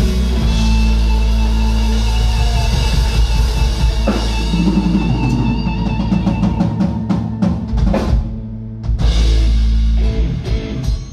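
Live band music without vocals: drum kit over bass and other instruments, with a run of quick drum hits in the second half, then a big hit and a held chord before it drops off near the end, the close of a song.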